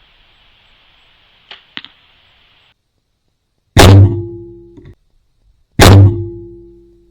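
Two bow shots about two seconds apart, each a very loud sharp crack of the released string followed by a low hum that fades over about a second; the first is cut off abruptly. Two faint clicks come before them.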